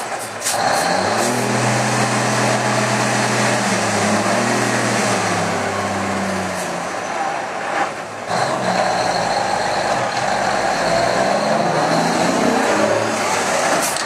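Heavy diesel dump truck engine revving under heavy throttle. The pitch rises about a second in and holds steady, then drops away around six to seven seconds. After a brief dip near eight seconds it runs hard again, loud and rough, as the truck pours out black exhaust smoke.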